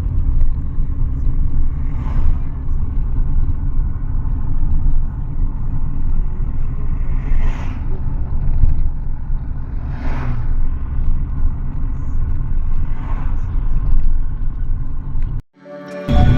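A loud, steady low rumble, with faint brief voices now and then; it cuts off suddenly near the end.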